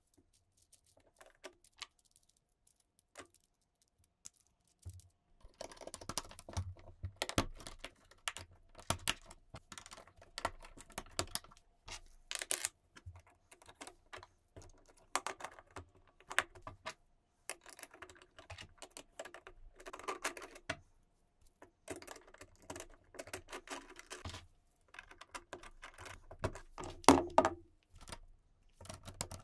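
LEGO Technic plastic parts clicking and rattling as they are handled and snapped together: gears, pins, axles and beams being fitted into a gearbox and differential assembly. A few faint clicks at first, then steady irregular clatter, loudest near the end.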